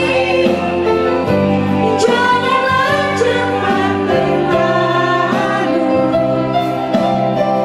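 A woman singing a slow song into a handheld microphone over amplified backing music, both coming through a PA loudspeaker, with long held notes.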